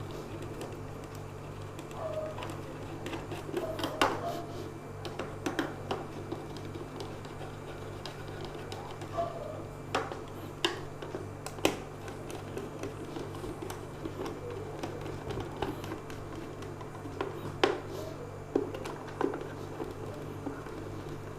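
Scattered sharp clicks and taps of tools and hard plastic parts being handled as a mixer grinder is screwed back together. A steady low hum runs underneath.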